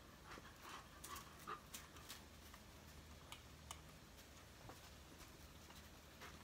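Near silence: faint outdoor background with a few scattered light clicks.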